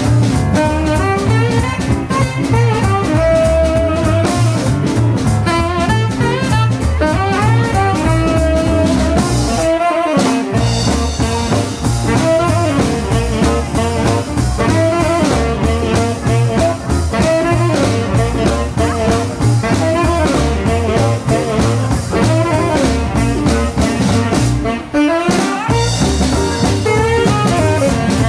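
Live band playing an instrumental shuffle: a baritone saxophone carries the melody over bass, guitar and drums. The bass and drums drop out briefly twice, about ten seconds in and near the end.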